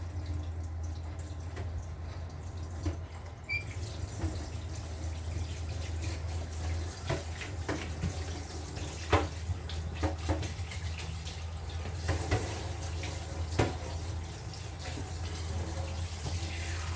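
Kitchen tap running into a sink, with a few sharp clinks of dishes and a steady low hum underneath. The running water grows louder a few seconds in.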